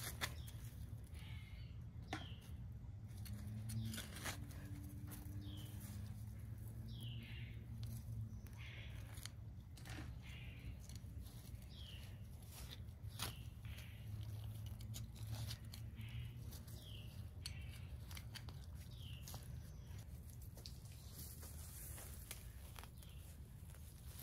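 Weeds being pulled by hand from damp soil: repeated short ripping and tearing sounds as roots let go, with scattered clicks.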